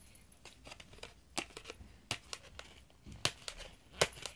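Stiff plastic blister packaging on a cardboard toy card crackling and clicking as it is handled and pried open, in a scattering of sharp crackles, the loudest a little before the end.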